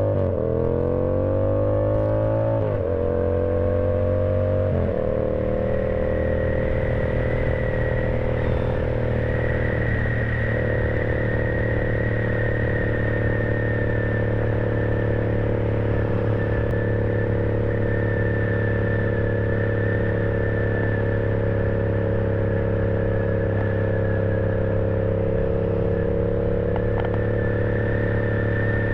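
Yamaha R7's 689 cc parallel-twin engine accelerating through three quick upshifts in the first five seconds, then holding a steady cruise with an even engine note and a faint high whine.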